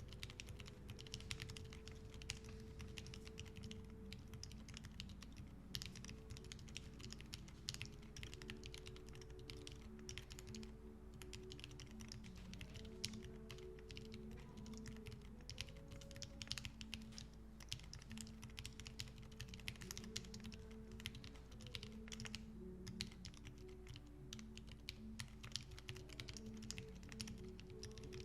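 Typing on a Midway60 mechanical keyboard with factory-lubricated BSUN silent switches, an aluminum plate and GMK keycaps. The keystrokes come in quick, quiet, muted runs with a few short pauses, over soft background music with held notes.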